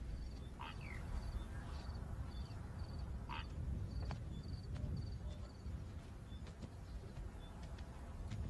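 Savanna field ambience. A short high chirp repeats about twice a second and fades after about six seconds, and a few brief sweeping animal calls come near the start and about three seconds in, over a low steady rumble.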